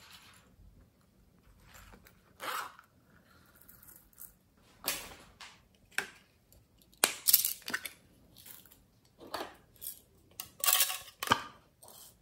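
Hands handling clay charms and slime add-ins over a glass dish of slime: a string of short, separate crinkling and clicking handling sounds, loudest about seven and eleven seconds in.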